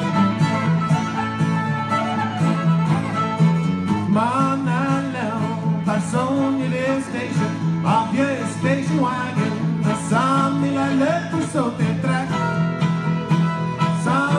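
Live bluegrass-style fiddle tune on two fiddles with acoustic guitar backing, played through a PA. From about four seconds in, rising sliding notes recur every couple of seconds.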